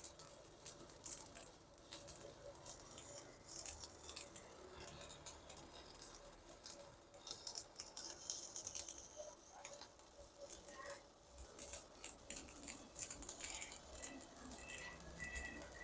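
Stick-welding arc from a Yoko AGC 220 inverter welder burning a 4 mm electrode on 10 mm steel plate: a steady crackling sizzle that runs without a break, the arc holding on the thick rod.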